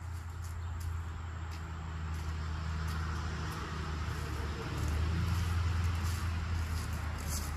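A motor vehicle's engine running steadily, a low hum that grows somewhat louder about five seconds in.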